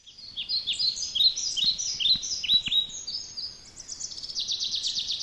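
Songbird singing: a run of short, high chirps that sweep downward, changing about four seconds in to a fast trill.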